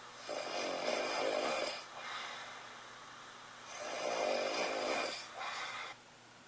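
A man snoring in his sleep with his mouth taped shut: two long snores about three and a half seconds apart, each followed by a shorter, weaker second part, then it falls quiet near the end.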